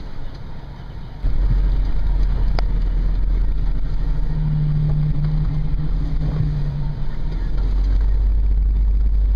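Toyota FJ Cruiser's 4.0-litre V6 engine and drivetrain, heard from inside the cabin on an off-road trail. A low rumble gets much louder about a second in, and a steady engine drone holds for a few seconds in the middle.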